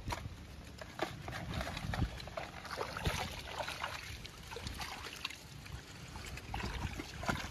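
Light splashing and trickling of shallow water around a man standing in it, with scattered small clicks and knocks throughout.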